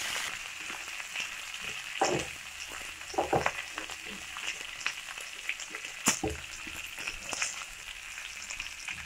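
Onions, garlic and bell peppers sizzling in oil in a non-stick frying pan while being stirred with a wooden spatula: a steady sizzle with scattered scrapes and knocks of the spatula against the pan.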